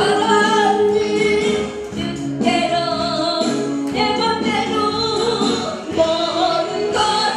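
A woman singing into a handheld microphone over instrumental accompaniment, with sustained, bending sung notes.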